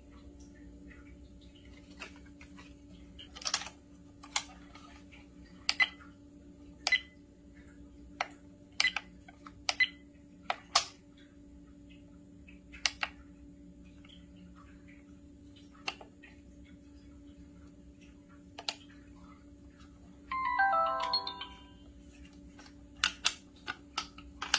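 Trail camera's control buttons clicking under a thumb, one press at a time, some presses answered by a short high beep. About 20 s in the camera's speaker plays a brief descending electronic jingle of several notes. A quick run of plastic clicks follows near the end.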